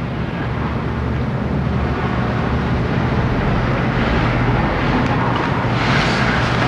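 A steady rumbling noise with a low hum underneath, slowly growing louder.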